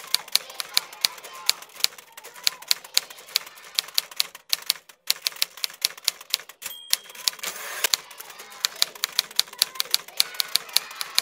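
Manual typewriter keys clacking steadily at about five strokes a second. About seven seconds in, after a short pause, a bell dings and the carriage slides back, and the typing starts again on a new line.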